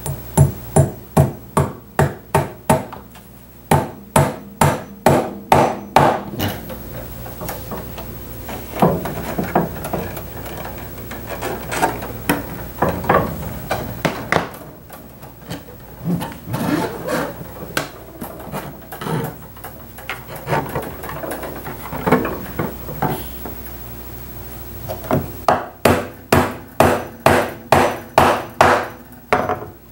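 Claw hammer driving small nails into a wooden chair frame: quick runs of sharp blows, about four a second, at the start, again a few seconds in, and near the end. Quieter knocks and rubbing fill the stretch between.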